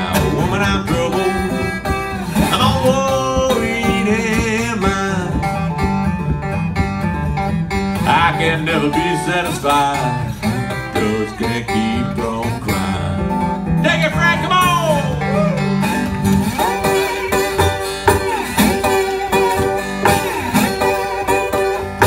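Acoustic guitar in open G tuning, played slide, taking an instrumental Delta blues break with gliding, bending notes over a steady bass.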